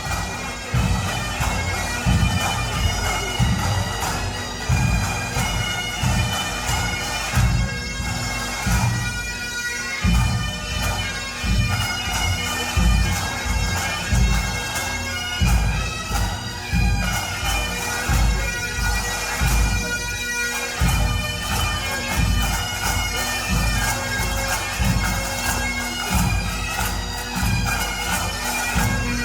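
Background music with a steady bass beat under held, sustained melodic tones.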